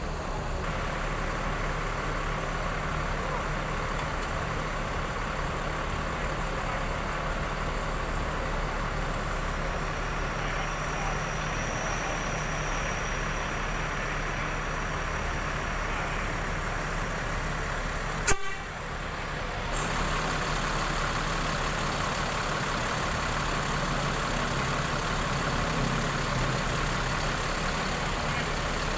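Diesel engine of a Mercedes-Benz OH 1526 coach idling steadily. A single sharp click about two-thirds of the way through is the loudest moment.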